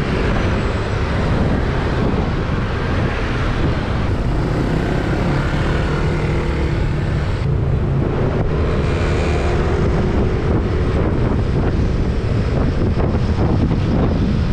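Steady road noise of a moving vehicle, its engine and tyres humming continuously, with wind buffeting the action camera's microphone.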